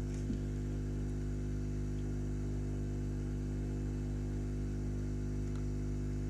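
Steady electrical mains hum, with one faint click about a third of a second in.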